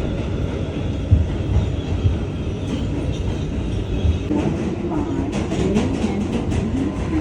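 New York City subway A train running on the rails, a steady low rumble with a voice starting up in the second half.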